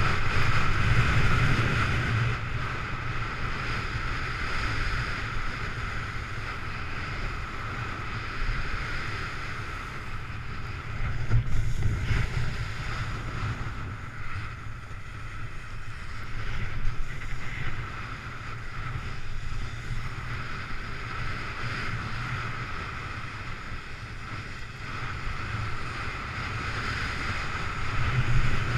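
Wind rushing over the microphone with the hiss and scrape of a snowboard sliding over snow, surging louder a few times.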